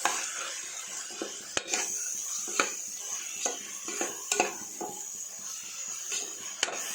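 A metal spoon stirring spiced onion-tomato masala in a pressure cooker pot, with repeated scrapes and knocks against the pot over a steady sizzle.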